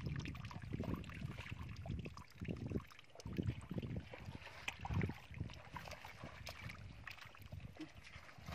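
Irregular low thumps and rustling from a wicker fish basket full of live catfish being handled close to the microphone.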